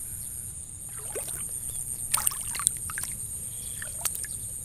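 Shallow water splashing and dripping around a gill net with a snake tangled in it, a few short sharp splashes about two seconds in and another near the end, over a steady high-pitched hiss.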